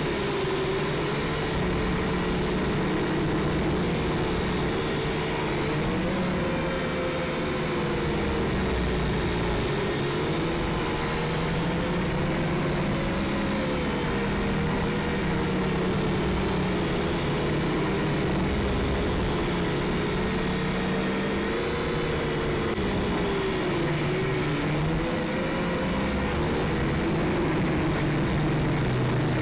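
Syma X5SC quadcopter's small electric motors and propellers buzzing steadily in flight, the pitch wavering up and down as the throttle changes.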